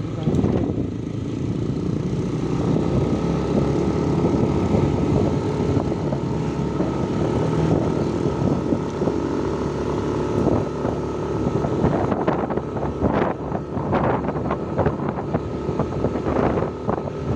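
Engine of a moving vehicle running steadily on the road, with wind noise on the microphone and a few short knocks near the end.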